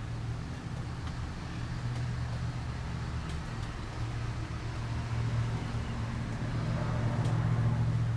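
A steady low motor hum with a hiss over it, growing a little louder near the end.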